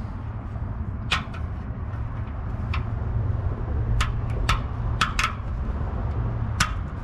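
Short metallic clicks and taps, about seven, scattered irregularly as an exhaust gasket is worked by hand over the flange studs of a catalytic converter. A steady low rumble runs underneath.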